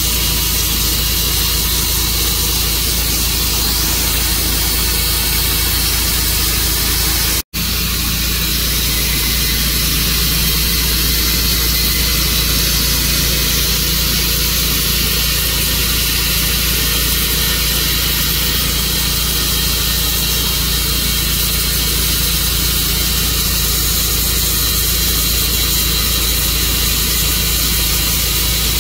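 Tru-Cut sawmill running steadily and loud, its engine and saw noise unchanging, with a split-second break in the sound about seven and a half seconds in.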